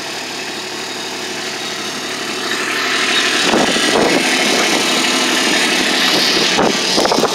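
Kubota RTV-X1100C's three-cylinder diesel engine idling steadily. About two and a half seconds in, wind noise on the microphone grows louder, with a few low buffets.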